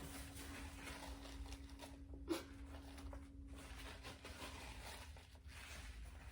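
Close-up eating noises: chewing chicken tenders and fries and handling the food, with a sharp click about two seconds in.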